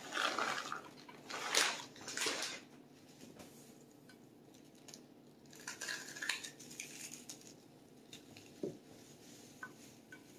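Shredded hash brown potatoes poured from a bag into a glass baking dish, a few bursts of rustling and pattering in the first couple of seconds, then softer rustling as hands spread them, with a light knock near the end.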